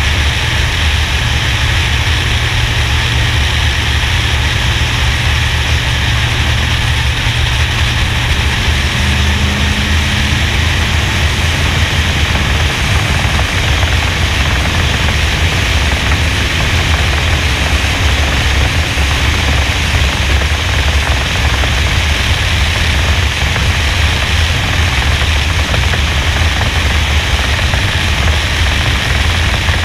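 Steady, loud rush of wind buffeting a camera on the roof of a NASCAR-style stock car at racing speed, mixed with the V8 engine's drone. The wind noise largely masks the engine, so lifting off and getting back on the throttle through the corners is hard to hear.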